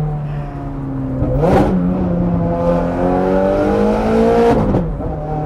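Ferrari 430 Scuderia's V8 through a Capristo straight-pipe exhaust with the valves open, accelerating hard, heard from inside the cabin. The engine note climbs steadily for about three seconds, then drops sharply near the end at an upshift.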